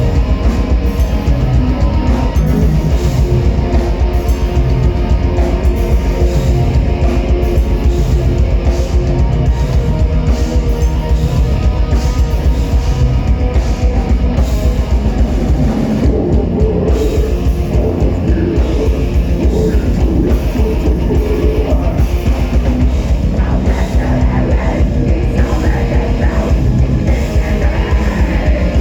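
Heavy metal band playing live: distorted electric guitars and bass over a drum kit with a fast, steady kick drum that drops out briefly about halfway through.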